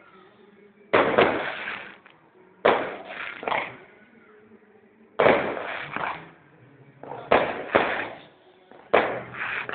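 Fireworks bursting in the sky: about ten sharp bangs, mostly in close pairs, each trailing off quickly.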